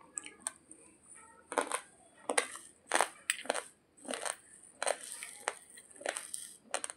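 Raw, uncooked basmati rice grains being crunched between the teeth: irregular sharp cracks, about two a second.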